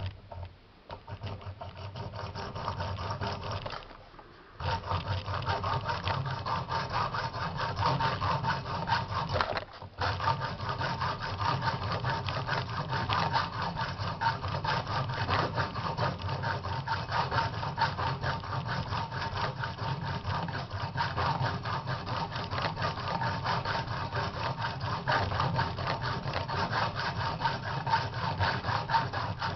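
Hacksaw cutting across a brass ISEO euro lock cylinder held in a vise, in fast, even back-and-forth strokes. It pauses briefly twice, about four and ten seconds in.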